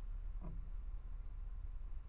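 Faint background rumble with one short squeak that falls in pitch, about half a second in.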